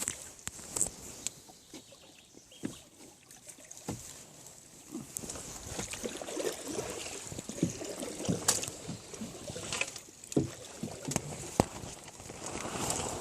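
Water sloshing and splashing, with scattered knocks and clicks.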